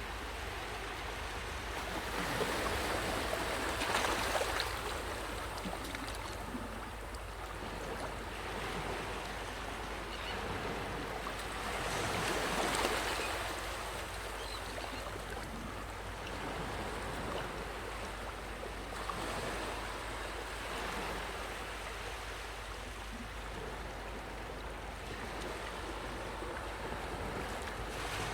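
Sea waves breaking on the shore: a steady hiss of surf that swells into a louder rush about every seven to eight seconds.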